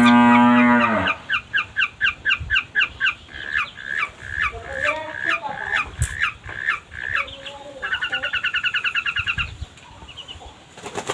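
Long-tailed shrike (cendet) song. It opens with a low, drawn-out call that ends about a second in. A long series of sharp repeated chattering notes follows, a few each second, then a fast even trill near the end.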